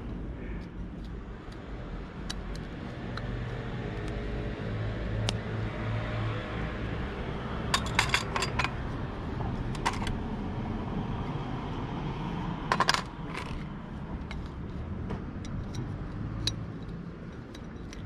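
Small sharp metallic clinks as thin metal brake shims are handled and fitted onto motorcycle brake pads, in a few quick clusters about 8, 10 and 13 seconds in, over a steady low background rumble.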